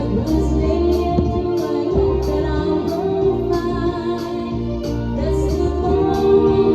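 Karaoke music with a singing voice over held chords and a steady ticking beat.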